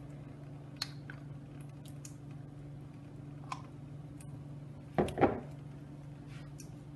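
A spoon clinking and scraping as jerk seasoning paste is spooned from a jar onto raw chicken pieces in a bowl. There are a few light clicks, then two sharper knocks about five seconds in, over a steady low hum.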